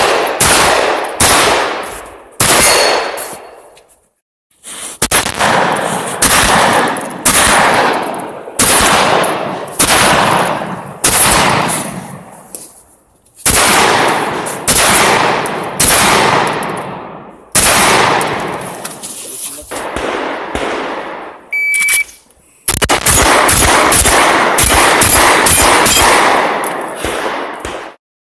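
Shotgun firing in quick strings of shots, each shot echoing off the range. A short electronic beep from a shot timer comes near the end, followed by a fast, dense string of shots.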